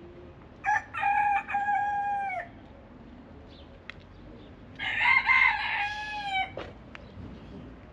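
Young rooster crowing twice, each crow lasting nearly two seconds and dropping in pitch at the end. The second crow, about five seconds in, is louder.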